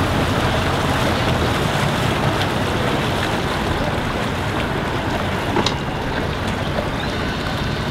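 Yamaha outboard motor on a small flats skiff idling as the boat moves slowly past: a low, steady engine hum under steady wind noise on the microphone.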